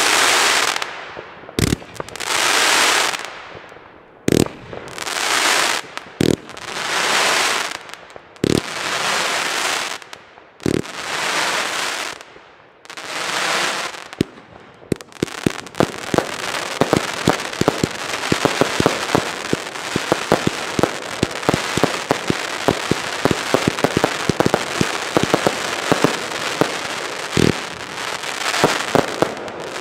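Firework battery (Zena Crackling Shape Box) firing single shots about every two seconds, each a sharp thump followed by a swelling hiss of crackling stars. About fifteen seconds in, the sound turns to a dense, continuous crackle of many small pops.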